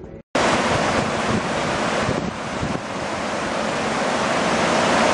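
Loud, steady rush of water cascading over rocks at the lip of a waterfall. It starts abruptly about a third of a second in, after a brief silent gap.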